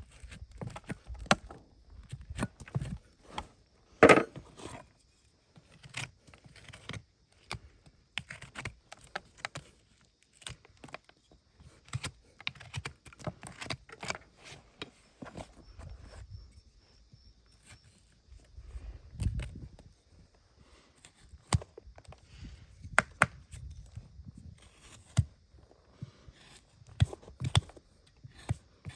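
Farrier's hand tools working a horse's hind hoof during a trim: irregular scrapes, clicks and snips, with one loud knock about four seconds in.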